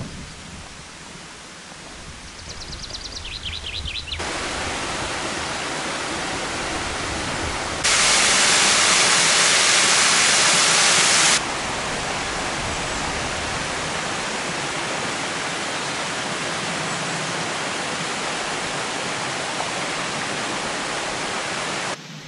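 Steady rushing of a stream's water running over stones. It steps up suddenly about four seconds in, is louder and brighter for about three seconds midway, then settles back to an even rush.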